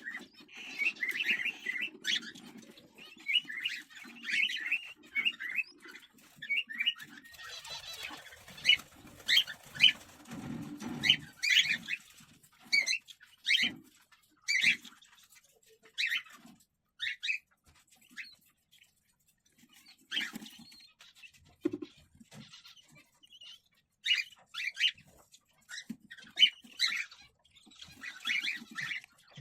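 Cockatiels chirping in quick runs of short, high calls, with sharper single squawks later on, over bouts of low scuffling and rustling from the birds moving about.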